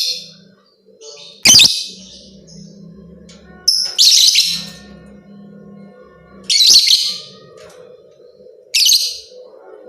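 Lovebird giving short, shrill bursts of rapid chirping, five of them about two seconds apart, over a faint steady low hum.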